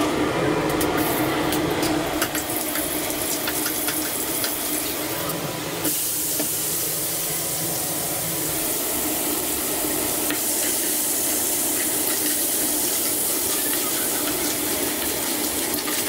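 Halved crabs stir-frying in hot oil in a wok, a steady sizzle that turns brighter and hissier about six seconds in.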